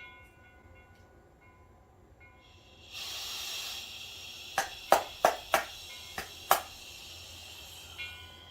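Compressed air hissing from scuba regulator gear on a tank, starting about three seconds in, strongest at first and then steady. A handful of sharp clicks or knocks come in the middle.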